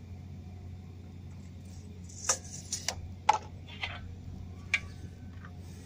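Handling noise as a circular-saw cut is set up on plywood: about six sharp clicks and knocks from tools and a straightedge being handled, bunched in the middle, over a steady low hum.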